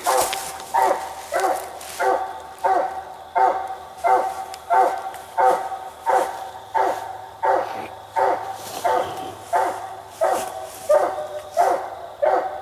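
Treeing Walker coonhound barking steadily at about two barks a second, each one short and pitched: a hound's treed bark, the sign that it has a raccoon up the tree.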